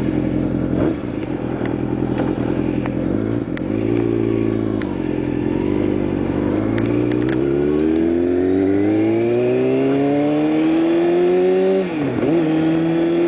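2009 Kawasaki ZX-6R inline-four engine through a Hotbodies MGP Growler slip-on exhaust, the bike under way and accelerating. The revs climb steadily, then dip sharply for a moment near the end at a gear change and pick up again.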